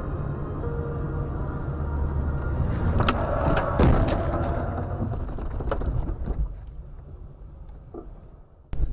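Vehicle running with a steady low rumble, broken by several sharp knocks around the middle, then fading away over the last couple of seconds.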